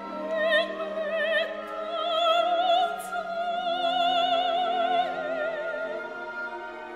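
Operatic soprano singing long held notes with a wide vibrato over sustained orchestral accompaniment.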